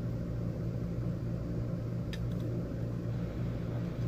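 Steady low hum of a running motor, with one light click about two seconds in.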